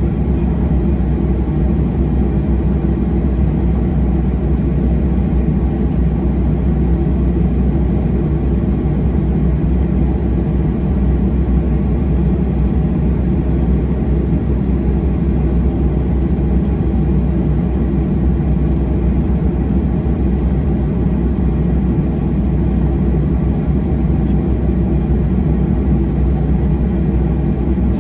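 Boeing 737-800 airliner heard from inside the passenger cabin: the steady, loud drone of its CFM56-7B jet engines and airflow, holding an even level with no rise or fall.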